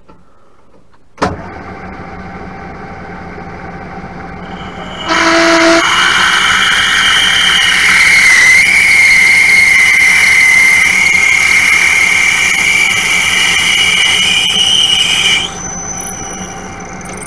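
A lathe is switched on with a click about a second in and runs with a steady hum. From about five seconds a 7.6 mm twist drill cuts into the spinning workpiece, squealing with a high, steady pitch for about ten seconds, then stops cutting while the lathe runs on. The drill is a deliberately undersize first pass before an 8 mm drill.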